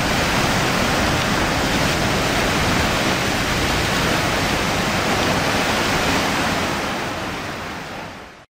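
Paddle wheels of the 1928 paddle steamer Stadt Luzern churning the lake water as it manoeuvres at the pier, a steady loud rushing that fades in the last second or so and cuts off.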